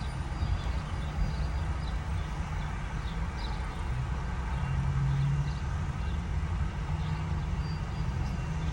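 Steady low engine hum, as of a vehicle idling, with a few faint crunches of someone taking a bite and chewing a fried apple pie.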